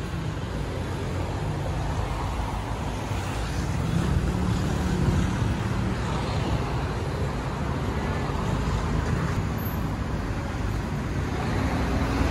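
Road traffic going by: a steady hum of car engines and tyres, swelling a little about a third of the way in and again near the end.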